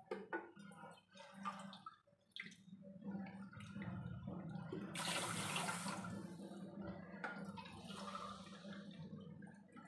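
Water poured from a plastic bottle into a steel tumbler and emptied into a cooker pot of washed rice, a cupful at a time: a steady trickle with louder splashing about five and eight seconds in. A few light clinks of the steel tumbler come before the pouring starts.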